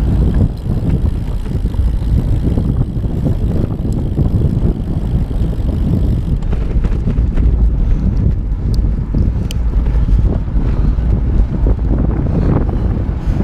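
Wind buffeting the microphone of a camera riding along at speed on a bicycle: a loud, steady low rumble with road noise underneath.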